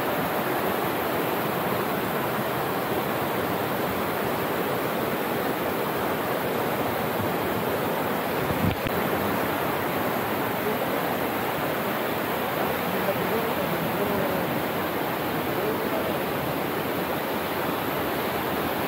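Waterfall cascading over a rocky channel: a steady rush of water. There is one short thump a little before halfway.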